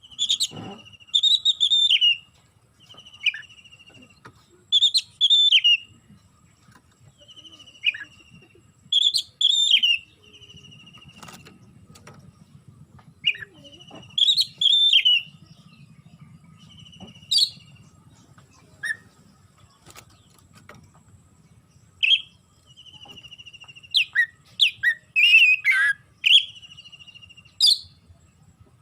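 Oriental magpie-robin (kacer) singing: short phrases of sharp whistled notes, each followed by a buzzy rattling trill, repeating every few seconds, with a quicker, busier run of notes near the end.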